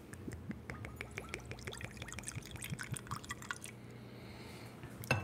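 Bourbon being poured over ice cubes in a glass, with many small clicks and crackles from the ice and a sharper knock near the end.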